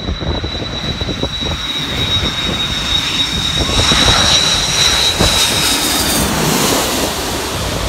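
Jet airliner's engines passing low, a high turbine whine drifting slowly lower in pitch while the rushing engine noise swells and peaks near the end.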